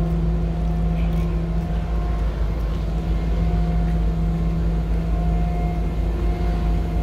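Steady low drone of the MS Chi-Cheemaun ferry's engines and machinery, a deep rumble with a constant hum on top.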